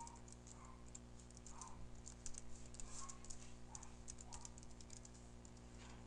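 Typing on a computer keyboard: faint, quick, irregular key clicks, over a steady low hum.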